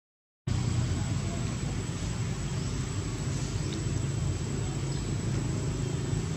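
Steady low background rumble, after a brief drop to silence at the very start.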